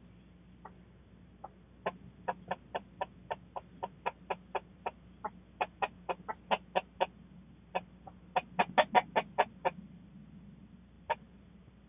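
Chickens clucking: quick runs of short clucks, several a second, coming in bursts with brief pauses, then just two spaced-out clucks near the end.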